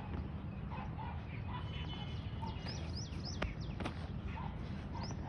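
Birds chirping: many quick, falling chirps over a lower call repeated about twice a second, with a steady low rumble underneath. Two sharp clicks come about halfway through.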